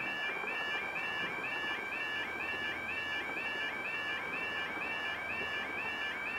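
Level crossing audible warning alarm: the electronic two-tone yodel sounding steadily, its pitch stepping up and down a little over twice a second. It signals that the barriers are down and a train is approaching.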